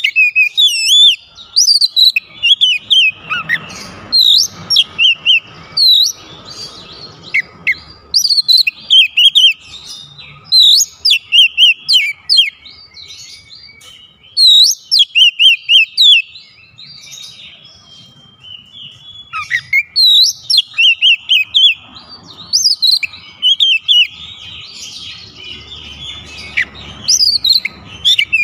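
Oriental magpie-robin singing loud phrases of rapid, sliding whistled and chattering notes. Each phrase lasts a second or two, and the phrases repeat about eight times with short pauses between them.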